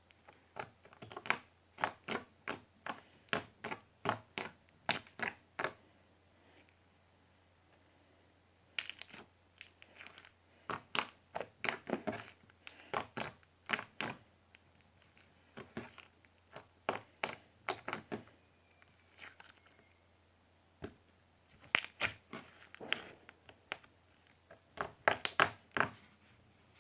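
Soft, runny slime, softened with toothpaste, being squeezed and stretched by hand, making quick runs of sticky clicks and pops. The runs stop twice for about two seconds.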